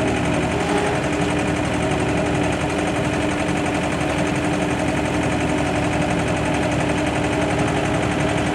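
Excavator's diesel engine running steadily under load, with a constant hum, as it pulls a heavy skid steer out of deep mud.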